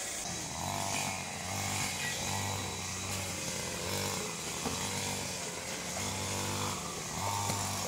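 A small engine running, its note shifting up and down every second or so.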